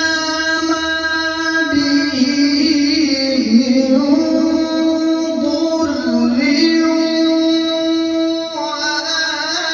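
Male qari reciting the Quran in a slow melodic style, holding long ornamented notes that bend and glide in pitch.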